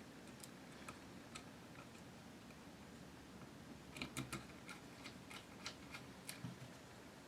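Faint small clicks and ticks of a screwdriver on the screws of a GSG-16's aluminium bolt housing as they are screwed in, scattered at first and coming in a quick cluster about four to six seconds in.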